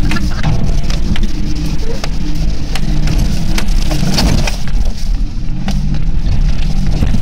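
Suzuki 4x4's engine running at low revs, heard inside the cab as it crawls along a rutted, overgrown track, its pitch shifting up and down a little. Frequent sharp knocks and rattles come through over it as the vehicle jolts over the ruts and brushes through the undergrowth.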